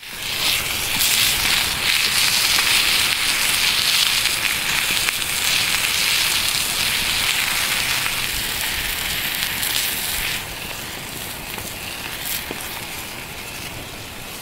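Sausages sizzling in a pan over an open campfire, a dense steady hiss with small pops, while the burning wood crackles. The sizzle is loudest for the first ten seconds, then drops a little.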